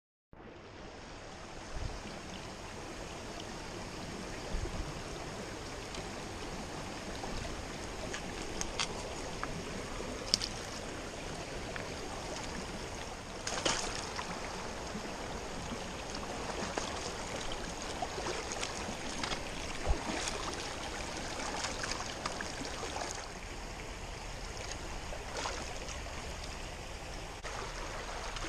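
Creek water flowing over a shallow, fast stretch in a steady wash, with a few sharp knocks now and then.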